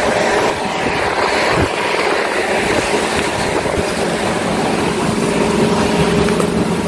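A steady engine hum under rough wind noise on the microphone.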